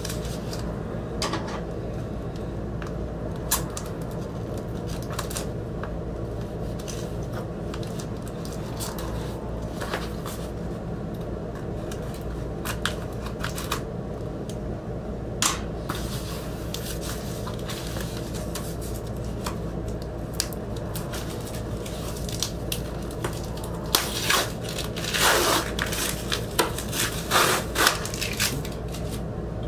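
Plastic shrink wrap on a vinyl LP sleeve being cut with scissors and peeled off: scattered snips, scrapes and clicks of handling, then a run of crinkling as the plastic is pulled off and crumpled near the end. A steady low hum sits underneath.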